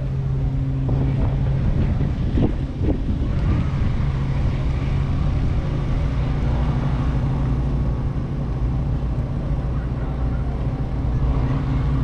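Steady low hum of an engine running at idle.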